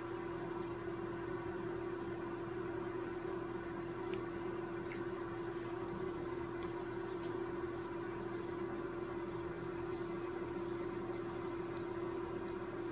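A steady hum at one pitch, with faint scattered ticks and small wet splashes of a baby Chacoan tegu paddling in shallow water in a plastic tub.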